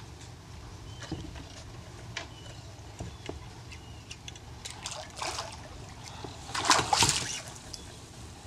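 Hooked sheepshead splashing at the surface beside a kayak as it is reeled in, with the loudest splashes about two-thirds of the way through, over light water lapping and small scattered clicks.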